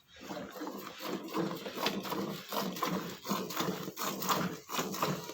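Dairy cattle sounds: a busy, continuous mix of animal noise with frequent short knocks and rustles.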